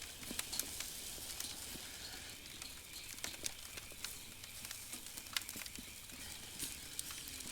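Campfire crackling under chicken and steak roasting on spits, with a steady sizzle and scattered sharp pops throughout.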